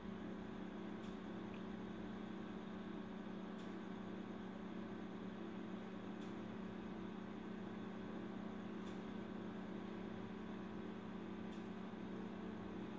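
Steady electrical hum with five faint, evenly spaced ticks about two and a half seconds apart.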